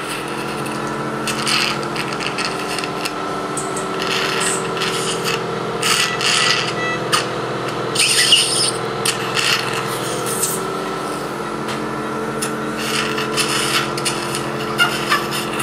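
Surgical suction unit running with a steady hum, with irregular hissing spells as the suction tip draws blood and fluid from a French bulldog's mouth during soft palate surgery.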